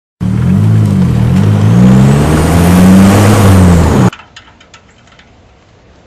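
Car exhaust with a clip-on fake turbo whistler, the engine revving up and down while a thin whistle rises in pitch. The sound cuts off abruptly about four seconds in, leaving faint background with a few light clicks.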